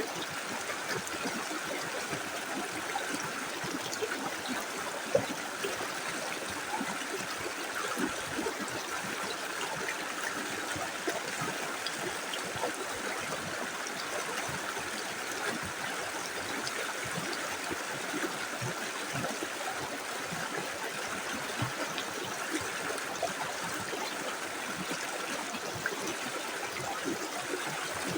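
Small river flowing steadily over stones, a continuous babbling with small splashes and one brief louder splash about five seconds in.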